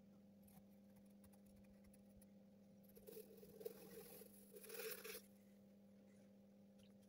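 Graphite pencil scratching across drawing paper as it shades, in two short stretches lasting about two seconds in all, starting about three seconds in. Otherwise near silence with a faint steady hum.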